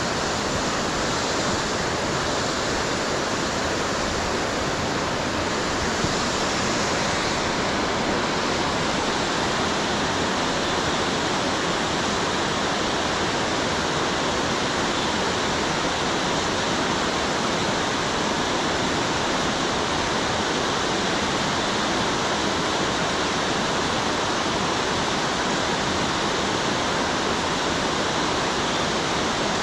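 A wide waterfall pouring across the full width of a rock ledge: a steady, even rush of falling water.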